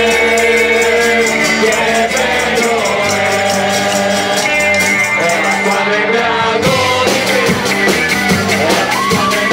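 Live band playing a rock song on drums, bass and guitars, with voices singing the tune over a steady beat; the drum strokes come through more strongly near the end.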